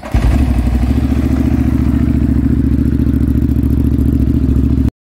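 Ducati Monster S4R's Testastretta V-twin with a Termignoni exhaust firing up off the starter and running steadily, the sound cutting off abruptly near the end.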